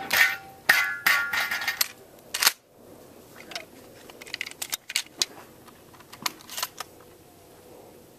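Steel targets clanging and ringing just after a shotgun shot, with a few more sharp knocks over the first two and a half seconds. Then a run of light clicks and clacks as shotgun shells are taken from a belt caddy and loaded by hand.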